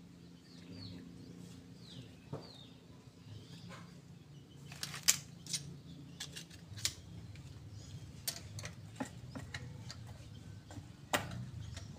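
Sharp metal clicks and clinks of a hand tool against the gear stack and case of an opened Toyota Dyna manual gearbox, coming irregularly from about five seconds in. In the first few seconds there are faint bird chirps over a low steady hum.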